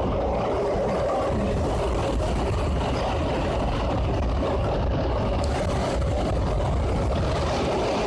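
Paris Métro MP89CA rubber-tyred train running at speed through a tunnel, heard from inside the car: a steady low rumble with a faint, even motor whine held over it.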